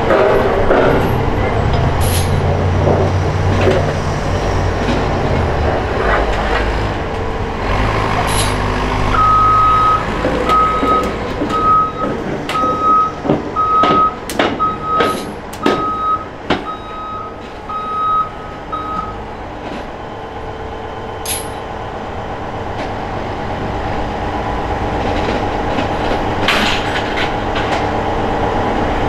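Heavy diesel equipment running with a low rumble, then a backup alarm beeping about once a second for some ten seconds. Sharp metallic clanks and knocks come while the alarm is sounding.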